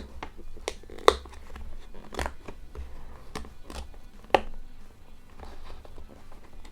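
Cardboard box being carefully opened by hand: irregular clicks, scrapes and small tearing of card, with two sharp snaps, about a second in and about four seconds in.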